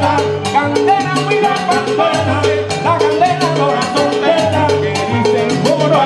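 A salsa band playing live: a bass line changing notes under quick, even percussion strokes, with a melody line above.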